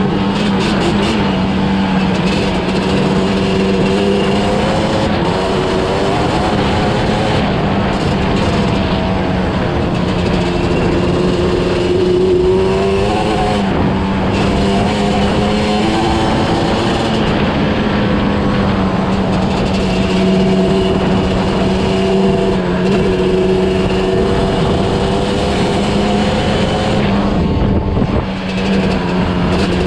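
Yamaha Banshee's 350 cc two-stroke twin engine running at a steady cruise under way, heard from the rider's seat. The revs sag and climb again about halfway through, and briefly back off near the end before picking up again.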